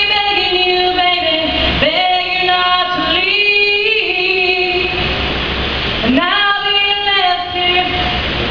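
A woman singing unaccompanied, with no backing music. Long sustained notes come in three phrases, with a pause of about two seconds before the last.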